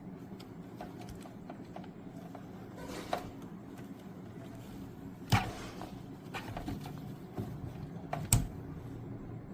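Scattered clicks and knocks of hard computer parts being handled, loudest about five seconds in and again just after eight seconds, over a steady low hum.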